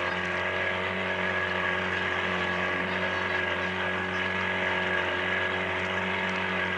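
Small outboard motor running steadily with an even hum as the boat moves along.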